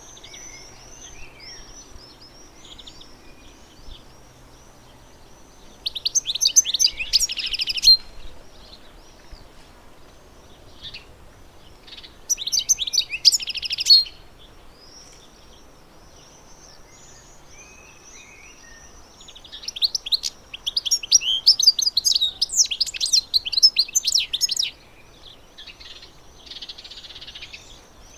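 Finch song: three loud bouts of rapid, high twittering, the longest lasting about five seconds near the end, with softer chirping notes in between.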